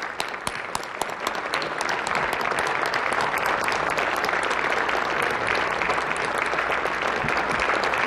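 A large crowd applauding. The clapping thickens and grows louder about a second and a half in, then holds steady.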